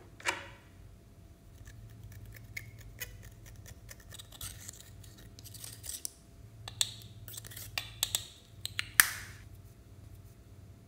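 Pressed eyeshadow being scraped out of its plastic compact with a small tool and knocked into a glass tray: a sharp click near the start, a scratchy stretch in the middle, then a run of clicks and taps with the loudest near the end.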